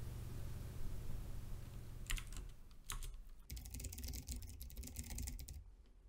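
Computer keyboard typing: a few keystrokes about two seconds in, then a quick run of keystrokes, over a low background hum.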